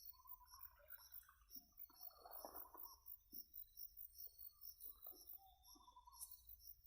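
Near silence: faint outdoor ambience of insects chirping in a steady rhythm of about four chirps a second, with scattered soft animal calls.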